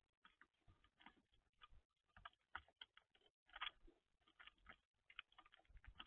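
Faint, irregular tapping and clicking, sometimes in quick runs: birds pecking and scratching at seed on a feeder.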